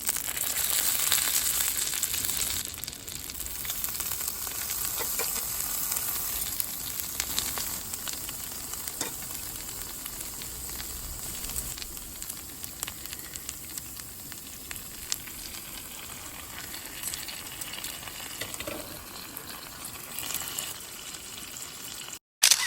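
Meat frying, a steady sizzle with fine spitting crackles, loudest at first and then settling a little. It stops abruptly near the end.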